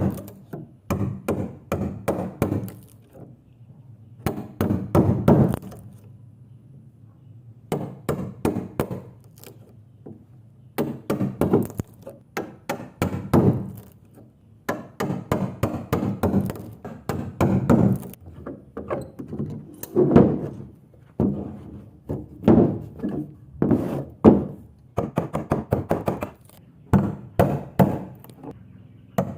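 Hammer blows striking wood during hand joinery, coming in runs of quick knocks with short pauses between them.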